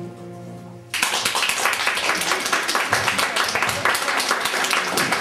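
Long held musical tones fade out. About a second in, an audience suddenly breaks into steady applause.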